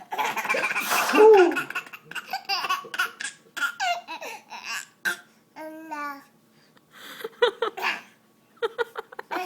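Baby laughing hysterically in short, repeated bursts of giggles and belly laughs, with a little babbling between them. Near the start, the loudest sound is a loud, hissing burst from the father, his sneeze or nose blow, that sets off the laughter.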